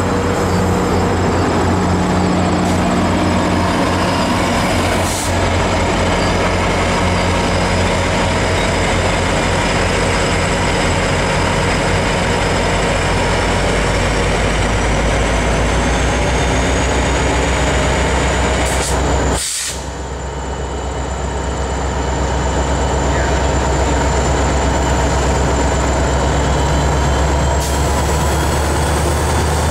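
Lash-up of GMD SD40-2 diesel-electric locomotives, EMD two-stroke 16-cylinder engines, working hard under load as a freight approaches, giving a loud, steady, deep engine drone. A thin high whine rises slowly through the middle, and the sound dips sharply for a moment about two-thirds in.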